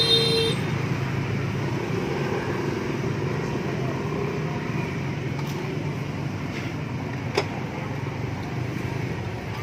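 Steady street traffic rumble, with a short horn toot at the very start and a single sharp click about seven seconds in.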